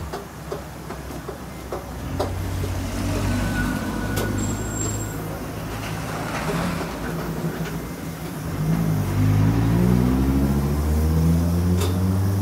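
A large road vehicle's engine running close by, growing louder and rising in pitch over the last few seconds as it pulls away.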